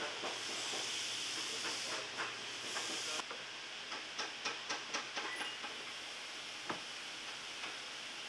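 A glue brush working cement over leather: a steady hissy scratching that cuts off about three seconds in, then a quick run of light ticks and taps as the brush works over the bottom of a boot.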